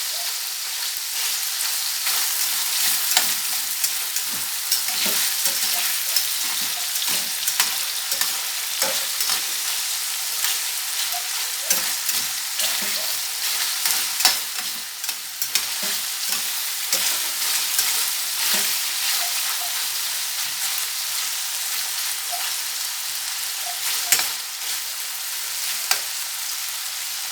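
Fish pieces frying in hot vegetable oil in a pot: a steady sizzle with frequent short crackles and pops.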